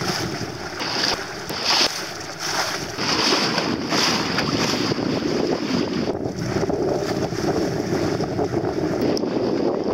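Wind gusting over the microphone, with water rushing and splashing along the hull of a small sailing dinghy under way.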